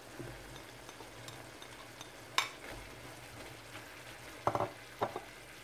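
Chicken, carrots and shredded cabbage sizzling faintly in a wok while being stirred with a spatula. There is a sharp knock about two and a half seconds in and a few quicker knocks near the end.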